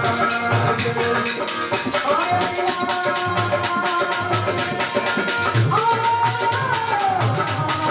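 Devotional folk bhajan music: a harmonium playing a held, reedy melody, with small hand cymbals jingling in a quick steady rhythm and a low beat pulsing underneath.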